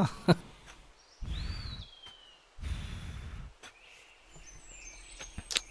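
Two short rushes of noise about a second apart, the first with a single falling whistled bird call over it. Then faint outdoor ambience with small bird chirps and a couple of light clicks.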